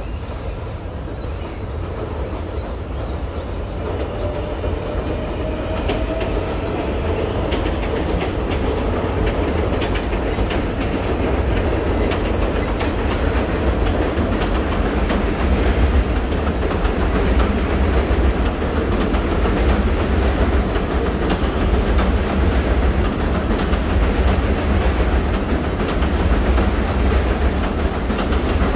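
New York City Subway 7 train running across the steel elevated viaduct overhead: a heavy rumble with wheels clattering over the rail joints. It grows louder over the first several seconds as the train comes closer, then stays steady.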